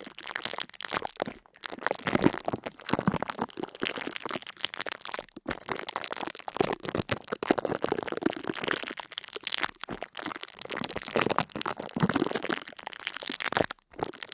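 A dense, irregular run of crackling and crunching, many sharp clicks close together with a few brief pauses.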